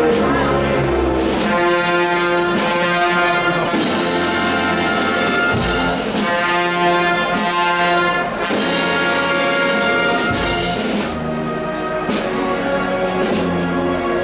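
Processional band of brass and woodwinds playing a slow procession march in sustained chords, with a couple of deep bass drum strokes.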